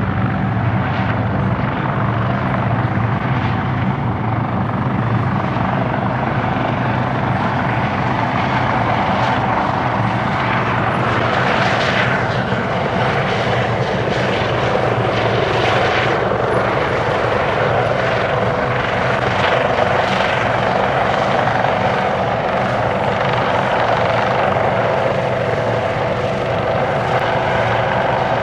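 AS365N3 Dauphin twin-turbine helicopter in flight: a steady rotor drone with a higher whining tone that drifts slightly in pitch.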